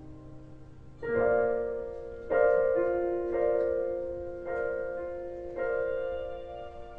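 Slow piano chords on an electric stage piano. A soft held chord fades out over the first second, then chords are struck about once a second, each ringing on and dying away before the next.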